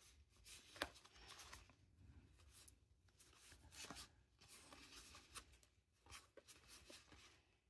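Faint rustle and soft flicks of cardboard football trading cards slid one at a time off a stack in the hands, with one sharper click about a second in.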